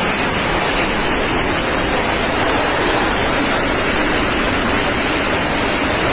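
Hurricane wind and heavy rain making a loud, steady roar without a break.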